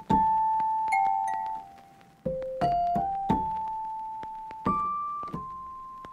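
Background music: a slow solo piano melody, about nine single notes struck one after another, each ringing and fading.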